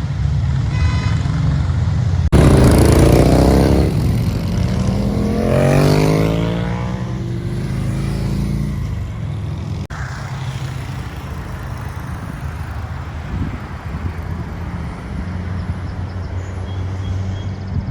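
Car engine running loud and close, with a low rumble throughout. About two seconds in it revs up hard, and its pitch falls and rises over the next several seconds before settling back to a steadier rumble.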